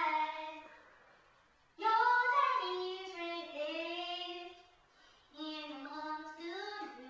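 A young girl singing in long, held, wavering notes, in three phrases with short breaths between: one fading just after the start, the next beginning about two seconds in, the last about five and a half seconds in.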